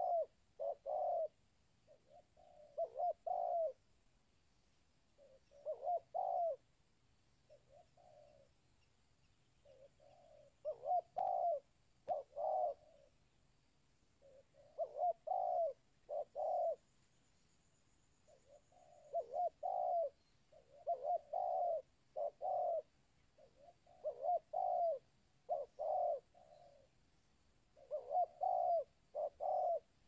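Spotted dove (tekukur) cooing: short phrases of two or three low coos, repeated with gaps of a second or two.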